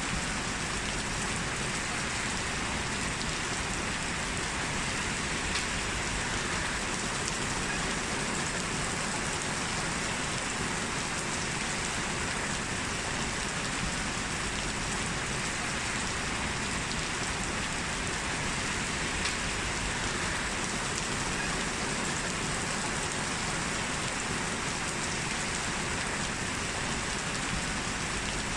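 Heavy rain falling steadily, an even hiss of drops with a few slightly louder single drops now and then.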